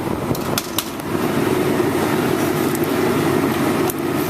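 A steady mechanical drone, with a few light clicks about half a second in and another near the end.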